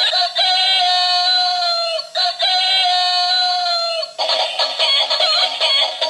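Spinning-rooster musical toy playing two long electronic rooster crows through its small, tinny speaker, each held about two seconds and sliding down at the end. Its jingly tune starts up again about four seconds in.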